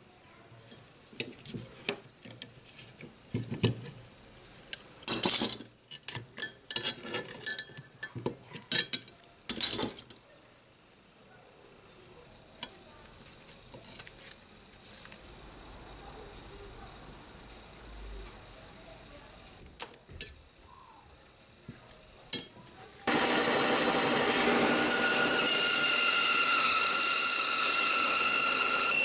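Scattered metal knocks and clicks as a C-clamp and knife are handled on a steel bench plate, then quiet paper handling. Near the end, a homemade bandsaw starts abruptly and runs with a steady whine as a wooden knife-handle block is fed into the blade.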